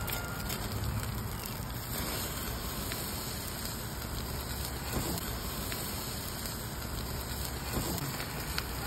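Fatty salmon belly sizzling and crackling over the flames of a tabletop grill, fat flaring in the fire, with a few light clicks of metal tongs on the grill grate.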